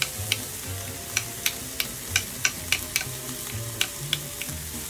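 Knife chopping garlic on a cutting board: quick, even taps of the blade on the board, about three a second, over a steady low hiss.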